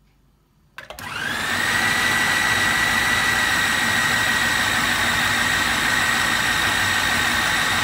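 Electric food processor switching on with a click about a second in, its motor whining up to speed and then running steadily as it grinds boiled chana dal (split chickpeas).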